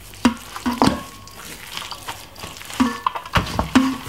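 Hands rubbing and squishing seasoning into a raw lamb joint in a stainless steel bowl, with several knocks against the metal bowl that each leave a short ring.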